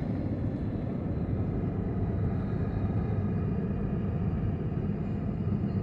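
Steady low road and engine noise of a vehicle driving at moderate speed, heard from inside the cabin.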